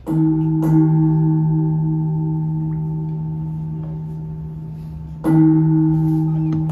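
A deep-toned bell struck twice, about five seconds apart, each stroke ringing on with a steady tone that slowly fades.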